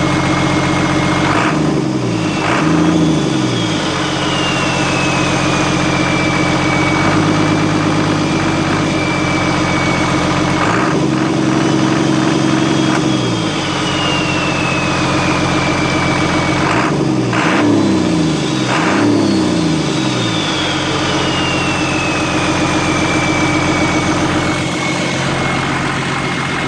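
A DJ60's turbocharged engine idling with a steady turbo whistle. The throttle is blipped a few times, and after each blip the turbo whistle rises in pitch, then slowly falls back over several seconds as the turbo spools down.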